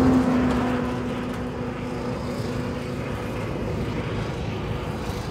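A truck going past on the highway, its engine drone loudest at first and fading away over the first few seconds, with wind rumbling on the microphone.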